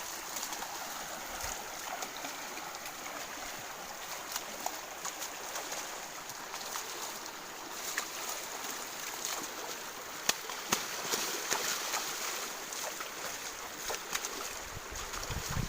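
Steady rush of flowing stream water, with scattered small clicks and splashes.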